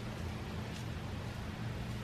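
A steady low mechanical hum over faint background noise, with no clear events.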